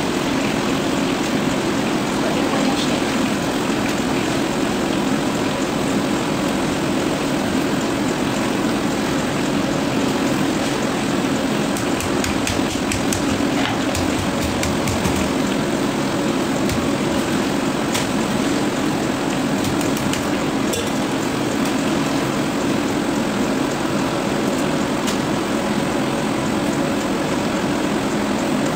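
Steady roar of a gas wok burner with oil sizzling as sliced chips deep-fry in a wok. A metal ladle clicks against the wok now and then around the middle.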